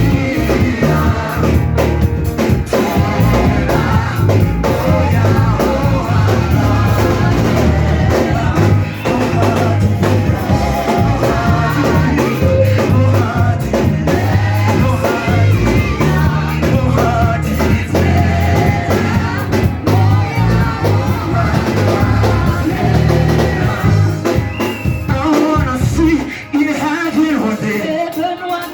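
Church worship music: voices singing over a band with heavy, pulsing bass and drums. Near the end the bass drops away and the singing carries on more thinly.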